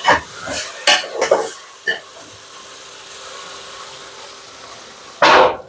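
Meat and garlic sizzling in hot oil in a pot, with a few quick stirring strokes from a spoon in the first two seconds and a short loud scrape near the end.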